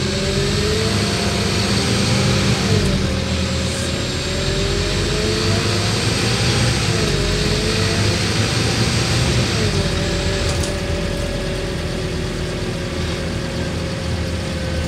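Scania N230UD OmniDekka double-decker bus heard from inside the passenger saloon, its 9-litre five-cylinder diesel and ZF Ecolife automatic gearbox pulling away. The engine and driveline whine climbs and drops sharply three times as it changes up through the gears, then runs at a steady pitch.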